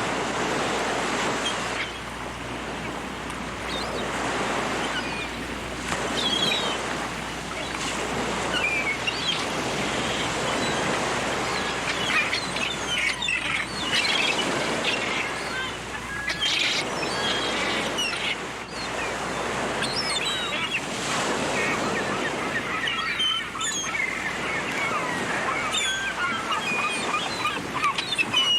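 Surf breaking on a shore, swelling and ebbing every few seconds, with seagulls calling again and again over it; the gull calls come thicker in the second half.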